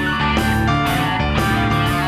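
Live blues-rock band playing: electric guitar over bass and drums, with a steady beat.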